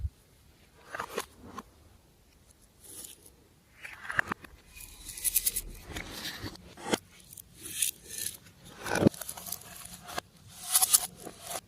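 Glossy slime being worked by hand, giving irregular short sticky squishes, scrapes and crackles.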